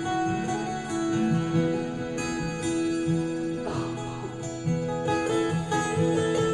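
Acoustic guitar playing a slow instrumental piece, its notes ringing long and overlapping one another.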